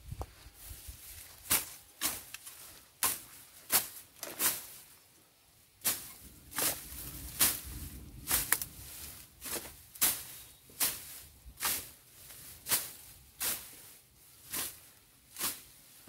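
A long-handled hooked blade slashing through grass and weeds in repeated sharp swishing strokes, a little under one a second, with a short pause about five seconds in.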